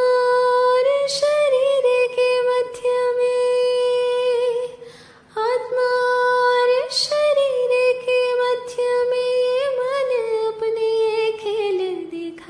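A woman's voice sings a Hindi devotional bhajan, holding long drawn-out notes with small ornamental turns. There is a brief pause about five seconds in, and the melody falls near the end.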